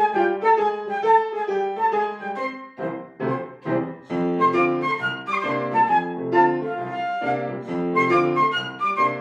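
Flute playing a quick run of notes over piano accompaniment, with a short break about two and a half seconds in before both carry on.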